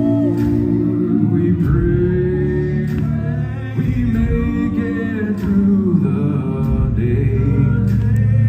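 Male a cappella quintet singing in close harmony, a deep bass voice holding low notes under the chords. Beatboxed vocal percussion clicks along with it.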